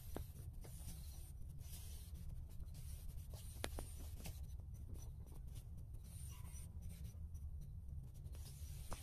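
Faint rustling and scratching handling noise, with a few light clicks, over a steady low rumble.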